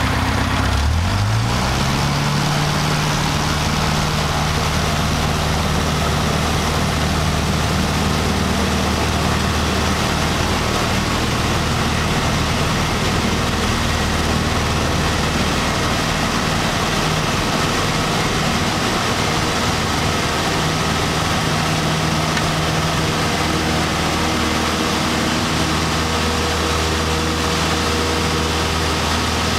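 Single-engine light aircraft's piston engine and propeller, heard from inside the cockpit, opening up to full power about a second in with a quickly rising pitch that levels off, then running steadily through the takeoff roll.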